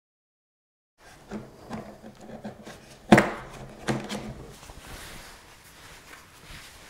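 After a second of dead silence, hands handle hard plastic: a small plastic slide box is pulled out of its moulded slot in a hard plastic carrying case, giving rubbing and clattering with a sharp knock about three seconds in and a smaller one a second later.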